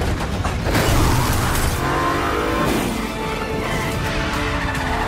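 Film soundtrack of a car chase: car engines revving and vehicles rushing past at speed, mixed with background music. Around the middle, an engine's pitch falls away.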